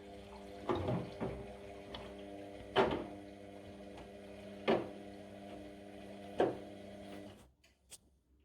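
Washing machine drum turning: a steady motor hum with a sharp thump every one to two seconds, stopping about seven seconds in.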